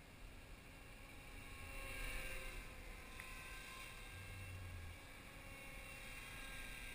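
Align T-Rex 250 electric RC helicopter flying at a distance: a faint, slightly wavering whine of its motor and rotors, louder for a moment about two seconds in.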